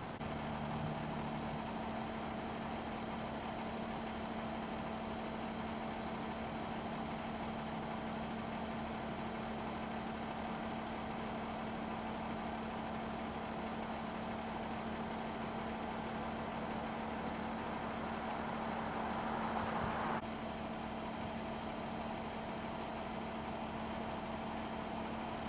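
Vehicle engine idling with a steady hum, with street traffic going past. A passing car's noise swells about three quarters of the way through, then cuts off abruptly.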